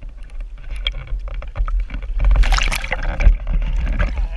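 Water sloshing and splashing right at a landing-net camera as a hooked trout is brought to the net, with a loud burst of splashing about two seconds in as the fish thrashes at the surface. A low wind rumble on the microphone runs underneath.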